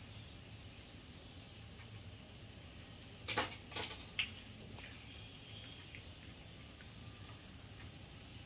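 Whole spices and bay leaves frying in hot ghee in a steel kadai: a faint, steady sizzle. A few sharp clicks a little over three seconds in.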